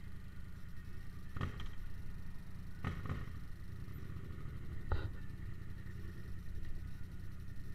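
Yamaha MT-07 parallel-twin engine with a Jeskap GP aftermarket exhaust running steadily at low revs, with three brief knocks spread through it.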